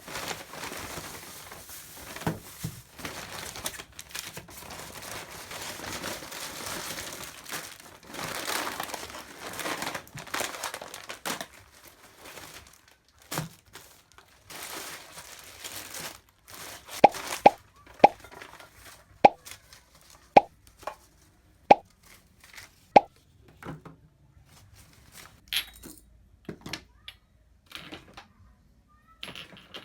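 Packaging rustling and crinkling as items are handled, then a run of about seven short, hollow plops roughly a second apart, followed by scattered light clicks.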